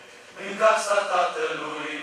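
Large mixed choir singing. The voices drop to a short lull at the start, then come back in together on a new phrase about half a second in.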